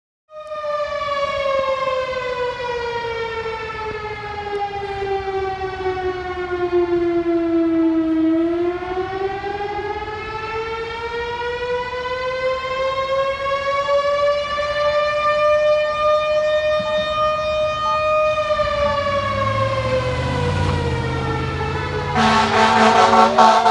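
Minquas Fire Company's Federal Signal STH10 fire-house siren wailing, its pitch sliding slowly down, then up for about ten seconds, then down again. Near the end a fire truck's horn and siren blast in over it, louder than the house siren.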